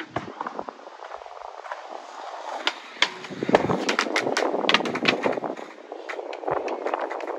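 Skateboard wheels rolling on asphalt, with a string of sharp wooden clacks as the deck is popped, flips and hits the pavement.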